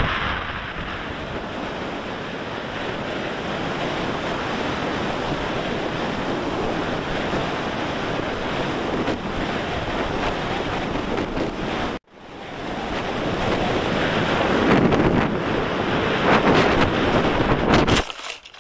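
Wind rushing over the microphone of a camera riding on an RC glider in flight. It cuts off abruptly about twelve seconds in, builds up again, and drops away sharply near the end as the glider comes down in the grass.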